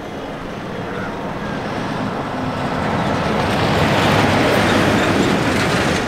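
Semi-trailer truck's diesel engine and tyres approaching on a road, growing louder to a peak about four seconds in and easing off near the end as it goes by.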